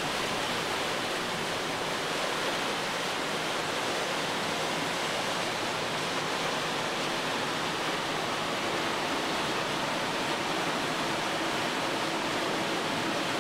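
Steady, even rushing of wind and water aboard a boat moving slowly under way.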